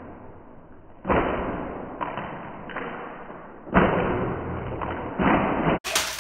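A series of heavy, muffled thuds about a second apart, each one fading slowly.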